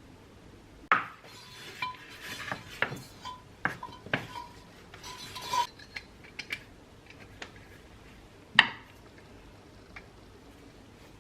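Small metal objects clinking and knocking together, a dozen or so sharp strikes, some with a short ringing note; the loudest knocks come about a second in and near the end.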